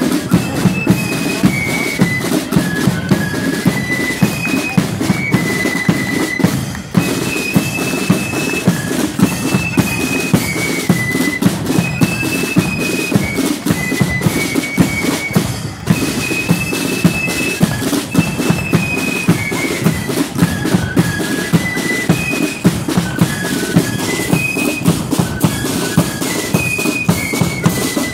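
Marching flute band playing: a high flute melody over side drums and bass drum beating a quick marching rhythm, the tune's phrase coming round again every several seconds.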